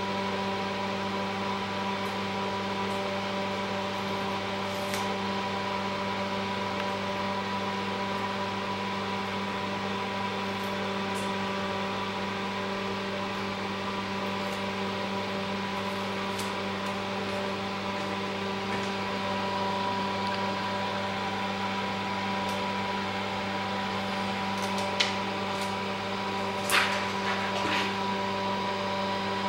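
Steady machine hum, with a couple of light clicks near the end as glass and screen parts are handled.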